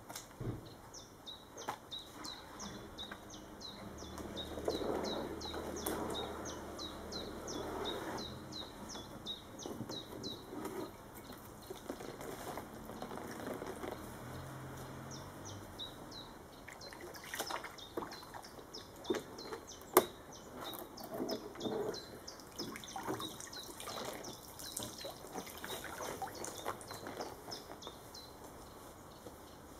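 Water sloshing and dripping as wet plywood sheets are lifted out of a shallow soaking bath. A small bird chirps rapidly and repeatedly in the background, and there are a few sharp knocks past the middle.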